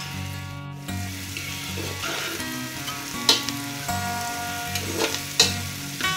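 Chopped onions sizzling as they fry in hot oil in a pot. A spatula stirs them, with a few sharp knocks against the pot about three seconds in and twice near the end.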